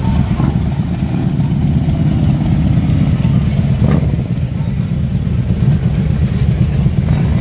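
Harley-Davidson touring motorcycles' V-twin engines idling together, a steady low rumble.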